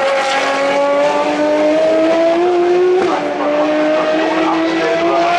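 Ferrari FXX-series V12 track car accelerating hard, its engine note climbing steadily, with a quick upshift about three seconds in before it climbs again.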